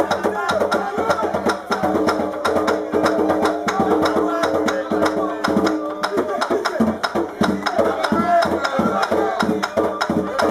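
Danmyé music: a bèlè drum played by hand in a fast, driving rhythm, with sharp wooden clicks and call-and-response singing over it.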